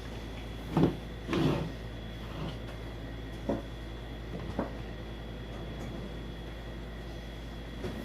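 Hands handling the battery charger and its packaging: a sharp knock about a second in, a longer scraping rub right after, then a few lighter knocks, over a steady electrical hum.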